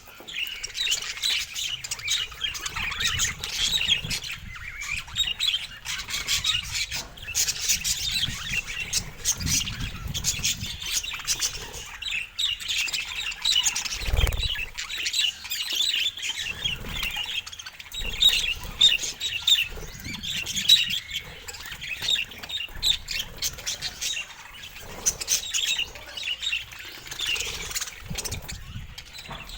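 Budgerigars chattering and warbling nonstop with rapid high chirps and squawks, with a dull low bump about halfway through.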